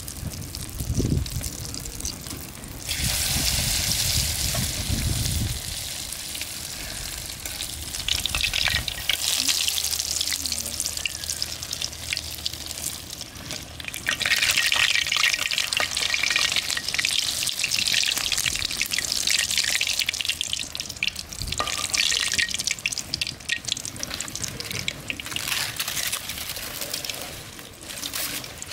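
Battered pumpkin flowers deep-frying in hot oil in an iron wok: the oil sizzles, swelling and dying down several times, with the clicks and scrapes of a metal spatula turning the fritters. A low rumble sits under the first few seconds.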